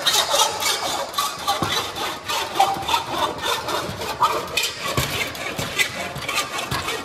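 Hand metal shears working the edge of a curved aluminium sheet panel: a run of short, sharp metallic snips and clicks, a few each second.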